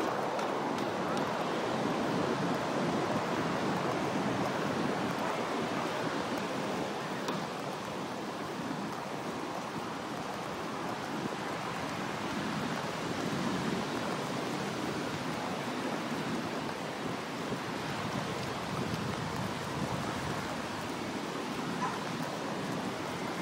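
Ocean surf breaking on a beach: a steady rush of waves that swells and eases slowly.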